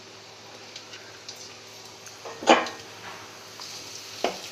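Chopped garlic frying in hot sesame oil in an aluminium kadai: a steady, quiet sizzle. A sharp knock comes about two and a half seconds in, and a smaller one near the end.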